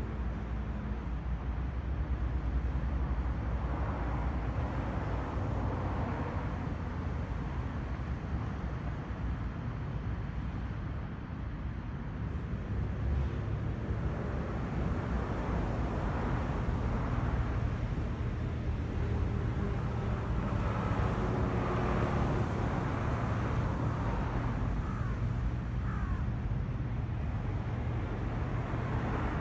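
City street traffic: a steady low rumble, with cars passing now and then, each one swelling and fading.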